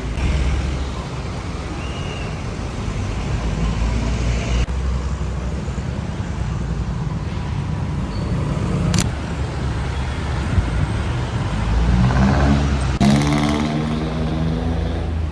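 Steady low rumble of a road vehicle's engine and tyres, with a pitched engine hum rising in over the last few seconds.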